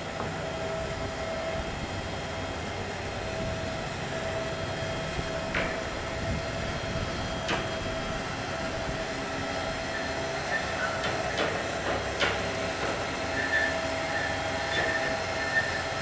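Marina boat lift's hoist running with a boat hanging in its slings: a steady mechanical hum with a constant whine, and a few sharp metallic clanks in the second half.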